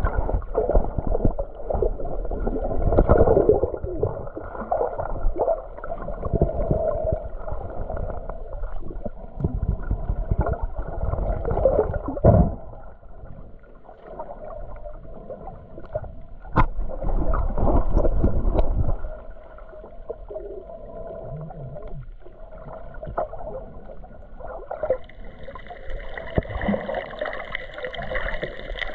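Muffled underwater water noise on a camera in a waterproof housing, surging and gurgling in irregular loud swells, then quieter. Near the end a faint steady higher hum joins it.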